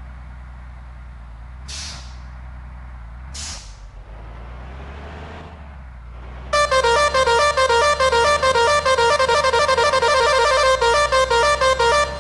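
Indonesian 'telolet' bus horn, a set of musical air horns, playing a fast, repeating tune of alternating notes, loud, starting about six and a half seconds in. Before it, a low engine rumble with two short hisses.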